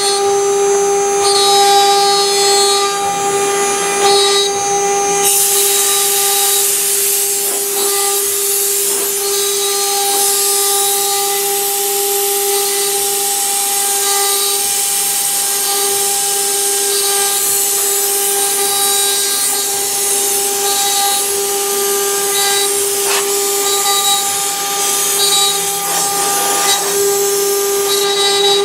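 Eight-spindle CNC wood router running, its spindles giving a steady high whine as the bits engrave plywood. A hissing cutting noise grows louder about five seconds in.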